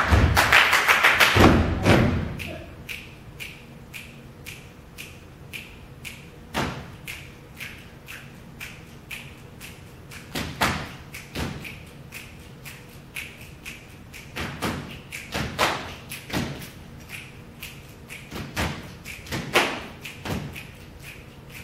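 Body percussion from a stage troupe: a loud, dense run of stomps and claps that stops about two seconds in, then a steady beat of light taps, about three a second, with louder thumps every few seconds.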